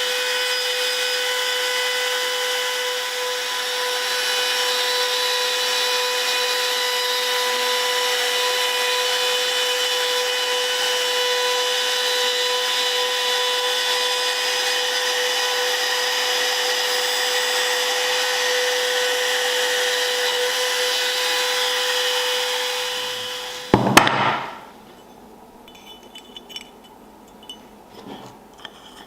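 Electric power tool running at a steady high-pitched whine, with a hiss of material being worked. It stops about 24 seconds in with a sharp knock, followed by faint scattered taps and clicks.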